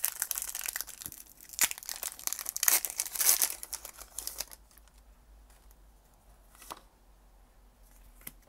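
Foil Pokémon booster pack wrapper being torn open and crinkled, a dense crackling run over the first four and a half seconds, then only faint rustling as the cards are slid out.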